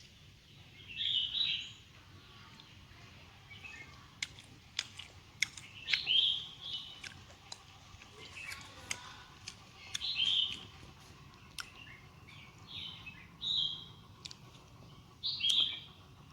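A bird calling with short chirps every few seconds, with a scatter of sharp clicks in the middle.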